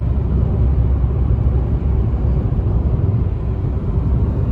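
Steady low rumble of a car travelling on the road, starting suddenly.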